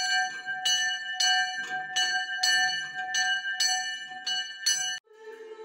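Church bell in an outdoor metal frame, rung by pulling its rope: about nine strikes, a little under two a second, each ringing on into the next. It cuts off suddenly about five seconds in, and faint music follows.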